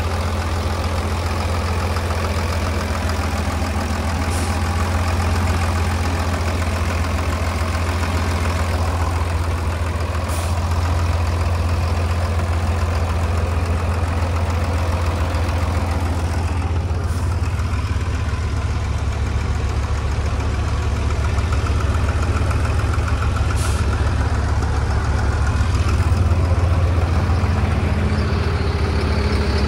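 Douglas TBL280 towbarless pushback tractor's engine idling steadily, with a deep, even drone.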